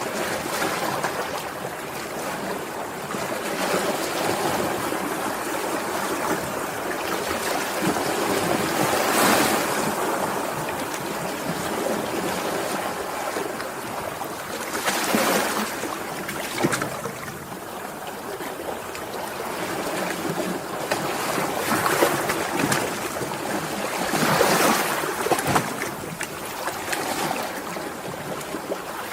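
Sea waves washing ashore, a continuous rushing surf with louder breaking surges every several seconds.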